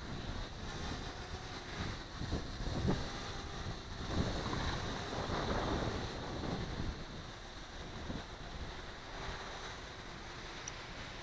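Strong, gusty wind buffeting the microphone, swelling loudest about two to six seconds in and easing toward the end.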